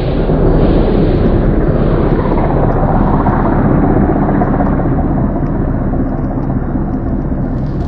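Loud, steady low rumble with a droning hum in it, easing slightly in the second half.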